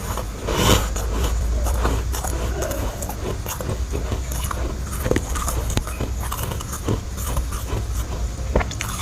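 A bite into a chunk of freezer frost about a second in, then chewing with many small crisp crunches, over a low steady hum.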